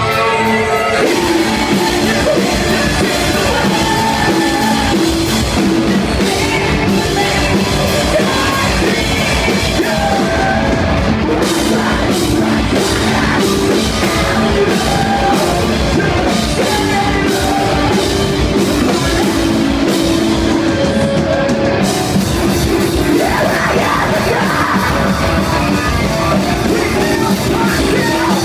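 Live rock band playing loud with distorted guitars, a pounding drum kit and sung and yelled vocals, as heard through a phone or camera microphone in the crowd.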